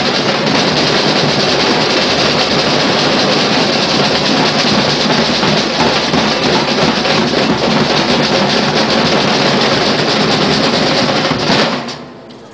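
Street drum group of large bass drums and metal-shelled snare drums playing a loud, dense, fast rhythm together, stopping abruptly about a second before the end.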